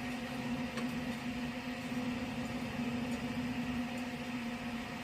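A steady machine hum, a constant low tone over an even hiss.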